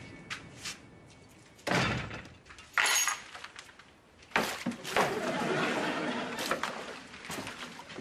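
A glazed front door pushed shut with a thunk, then a sharp metallic click and jingle about three seconds in, followed by a couple of knocks, footsteps and the rustle of carrier bags.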